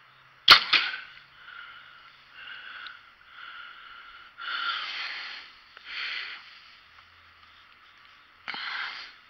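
Compound bow being shot: a single sharp snap of the string at release about half a second in, with a second sharp crack right after it, followed by several softer bursts of noise.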